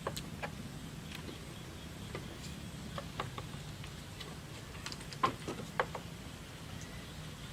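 Irregular light clicks and knocks, the two loudest a little past the middle, over a steady low hum.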